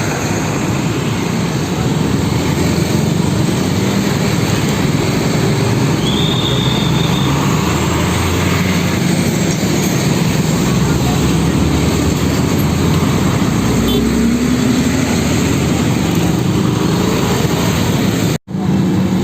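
Heavy road traffic: diesel truck engines running and passing over a steady roar of road noise. The sound cuts out for an instant near the end.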